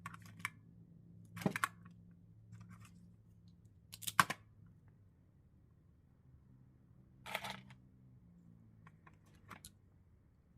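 Five short, crisp snips and clicks a few seconds apart, over a faint low steady hum: wire strippers cutting and stripping the insulation off car-radio harness wires.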